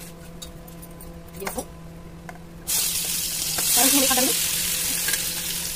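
Marinated button mushrooms tipped into hot oil in a kadhai set off a sudden loud sizzle about halfway through, which keeps going. Before that the oil sits quietly over a steady low hum.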